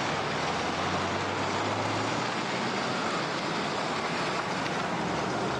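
Steady road traffic noise from cars, with a low engine hum that fades out about two seconds in.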